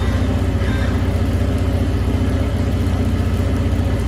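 Suzuki 350 outboard engines idling steadily on a flushing hose, with an even low pulse.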